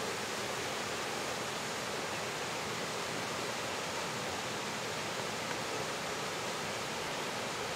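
Steady rushing of a large garden waterfall: an even hiss with no change in level or pitch.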